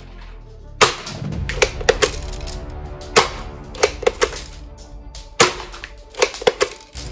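Background music with a sharp, clicking percussive beat: one hit followed by a quick cluster of three or four, repeating about every two seconds over a low steady bass.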